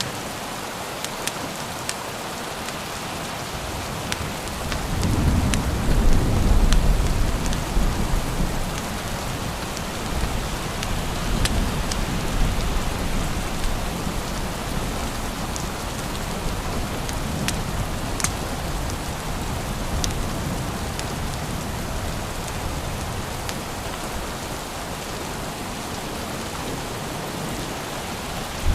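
Steady rain with a low rumble of thunder rolling in about five seconds in and dying away slowly over several seconds. Sharp ticks sound now and then over the rain.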